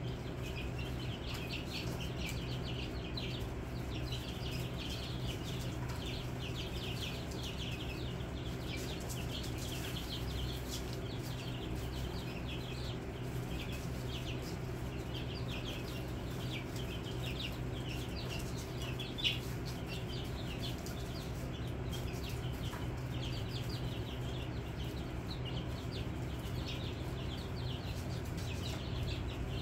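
A brood of chicks peeping continuously, many short high chirps overlapping, with one louder chirp about two-thirds of the way through. A steady low hum runs underneath.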